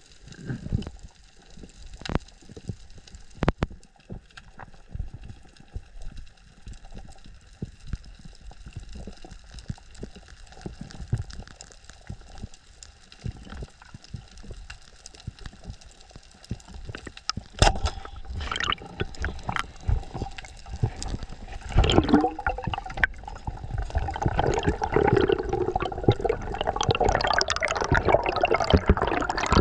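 Underwater water noise heard through a diving camera: scattered faint clicks and crackle at first, then louder and busier sloshing and gurgling with sharp cracks from a little past halfway, densest near the end.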